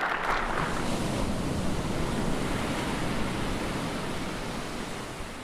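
An audience applauding steadily after a speech, a dense even rush of clapping that fades out near the end.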